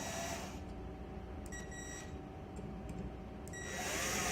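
Cordless screw gun running in short bursts, driving the clamp screws down on the armored ground cable in a bronze ground clamp. It runs briefly at the start, gives a short blip about a second and a half in, and runs again near the end with a whine that rises and falls.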